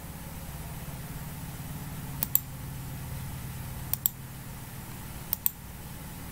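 Three pairs of quick clicks from computer input, most likely a mouse or keyboard, spaced out over a steady low background hum.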